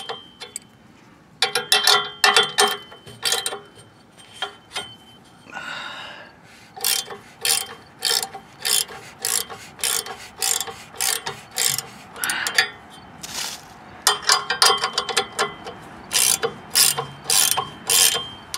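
Ratchet wrench clicking in quick runs of strokes with short pauses, tightening the nut on an exhaust hanger bracket.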